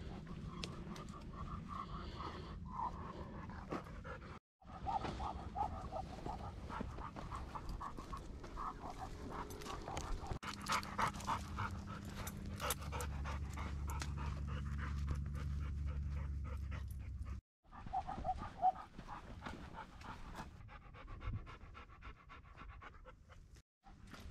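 A vizsla panting hard and fast as it pulls ahead on a leash.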